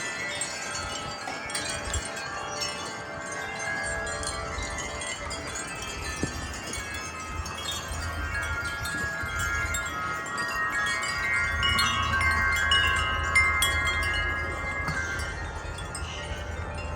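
Wind chimes ringing continuously in a strong gust, many overlapping tones building to their busiest in the middle and dying down near the end. A low wind rumble swells under them with the gust.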